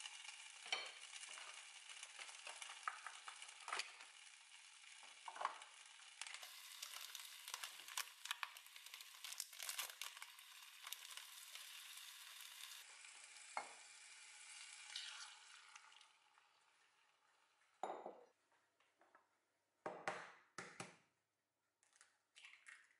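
Chopped vegetables sizzling as they fry in a hot pot, with a wooden spatula clicking and scraping as they are stirred. The sizzling fades away about two-thirds through, and a few sharp taps follow as an egg is cracked on a glass bowl.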